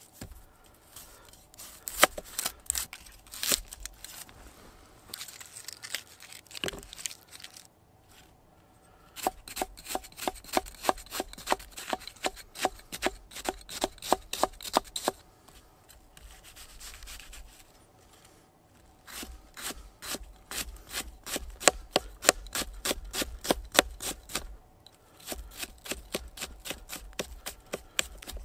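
Knife chopping an onion on a wooden split-log board. A few separate cuts come first, then two runs of quick, even taps of the blade on the wood, about five a second, with a short pause between.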